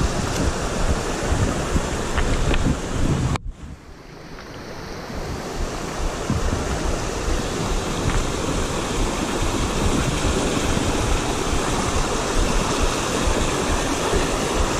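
Rocky forest stream rushing over boulders, with wind buffeting the microphone. The sound cuts out abruptly about three and a half seconds in and fades back up over the next two seconds.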